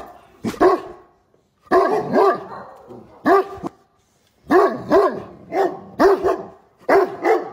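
A Great Dane barking in quick bursts of two or three barks with short pauses between, about a dozen barks in all. Each bark is pitched and arches up and down, the howling type of bark the breed is known for.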